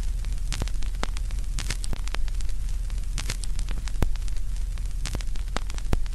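Crackling static: a steady hiss scattered with irregular sharp pops and clicks over a steady low hum.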